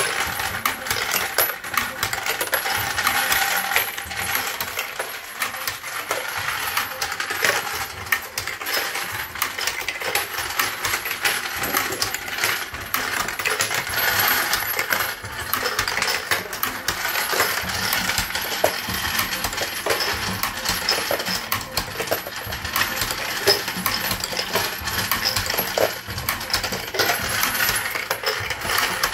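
Brass cartridge cases clinking and clattering without pause as an automatic case sorter feeds them through and drops them down its tubes into plastic bins.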